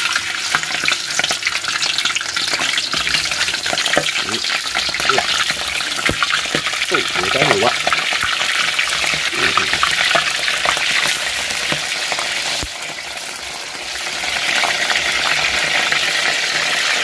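Fish dropped into hot oil in a frying pan, sizzling and crackling as it deep-fries. The sizzle starts suddenly as the fish goes in, eases a little about thirteen seconds in, then builds again.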